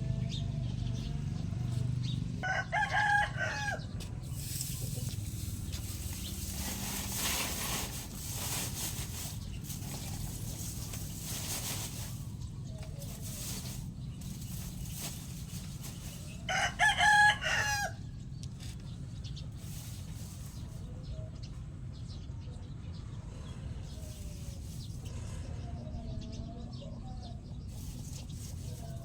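A rooster crowing twice, about three seconds in and again around seventeen seconds, with softer chicken clucks in between. A stretch of even rushing noise runs for several seconds after the first crow.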